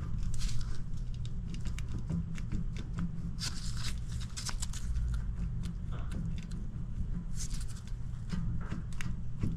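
Metal clicks, knocks and scrapes of a rear wheel hub being rocked in and out by hand. The hub shifts in its newly fitted split wheel bearings, play the owner takes as a sign that something is wrong with them.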